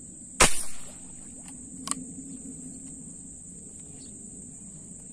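Tiksay rubber-band speargun fired into the water: a loud sharp snap with a short tail about half a second in, then a lighter click with a brief ring a second and a half later. A steady high insect buzz runs underneath.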